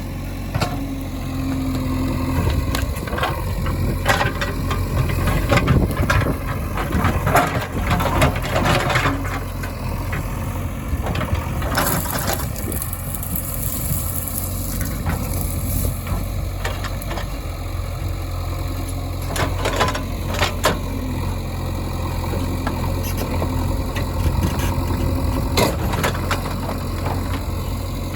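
Heavy-equipment diesel engine idling steadily, with scattered knocks and rattles and a spell of hissing about twelve seconds in.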